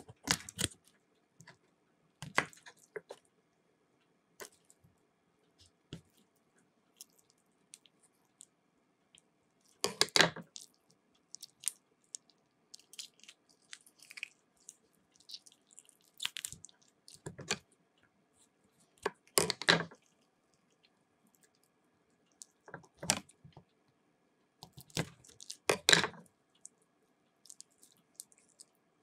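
Kitchen shears and hands working raw chicken legs on a wooden cutting board: scattered short snips, knocks and wet handling sounds, with a few louder bursts every several seconds.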